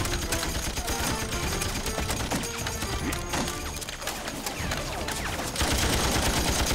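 Rapid gunfire, rifle and machine-gun shots, under dramatic background music. About five and a half seconds in, the shooting turns denser and louder.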